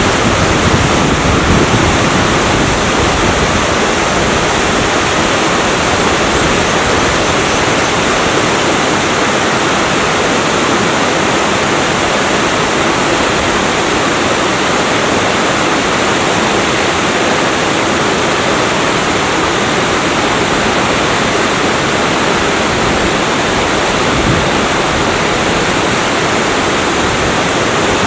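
Waterfall about 5 m high pouring down a rock face into a deep pool, a steady rushing of water.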